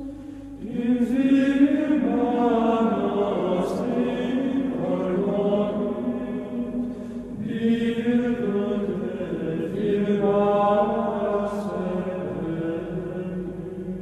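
Background music of voices singing a slow chant, long held notes moving gently in pitch, with new phrases beginning about half a second in and again around seven and a half seconds in.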